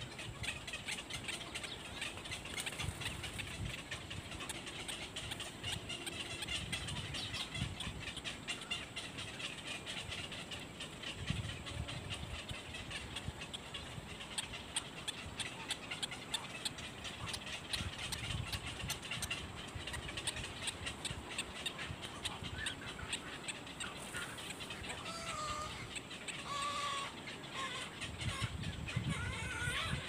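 Birds chattering in rapid, dense clicking calls, with a few clearer pitched calls near the end, over low rumbles that come and go.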